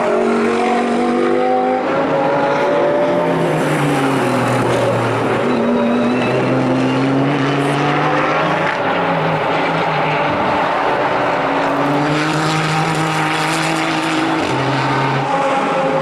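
Nissan GT-R Nismo GT3's twin-turbo V6 race engine under hard acceleration. Its pitch climbs and drops back at each upshift, several times over.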